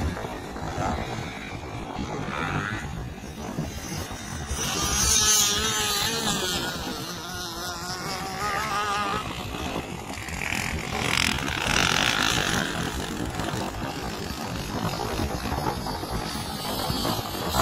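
Dirt bike engines revving and easing off, the pitch wavering up and down, with the loudest swells about five seconds in and again near twelve seconds.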